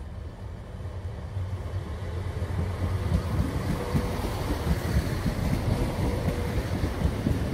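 A pair of Class 171/7 Turbostar diesel multiple units passing close by as they arrive, their underfloor diesel engines running with wheels rumbling on the rails. The sound grows louder about three seconds in as the train draws alongside.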